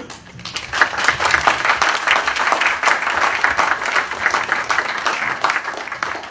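Audience applauding, the clapping starting about half a second in and dying away near the end.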